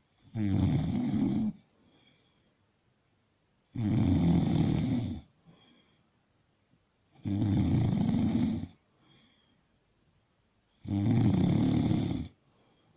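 Snoring: four loud snores, each over a second long, coming at an even pace about three and a half seconds apart, with quiet breathing between them.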